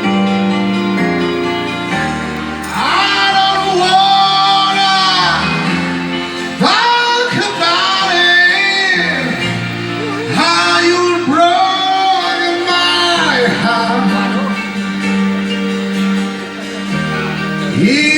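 A solo singer sings over a karaoke backing track with guitar, holding several long, wavering notes.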